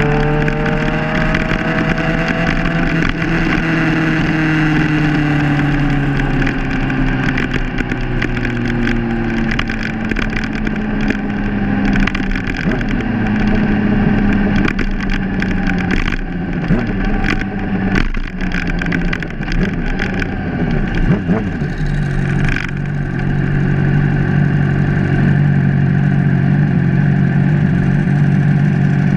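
Sportbike engine heard from the bike itself, climbing in pitch briefly and then falling slowly as the bike slows, with wind and road noise. It settles into a steady idle for the last several seconds.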